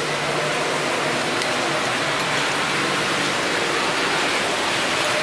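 Steady, even rushing hiss of background noise, with a few faint taps.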